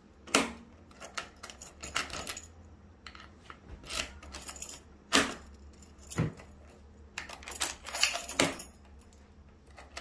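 Keys jangling on a ring while a key is turned in the key cylinder of a newly fitted Hornbill smart deadbolt, with a series of sharp metallic clicks. The loudest clicks come about eight seconds in.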